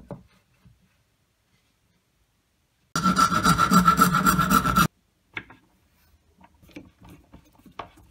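Electric drill boring through a thin wooden strip, running steadily for about two seconds in the middle. Afterwards come a few light clicks and scrapes of a screwdriver driving a screw into wood.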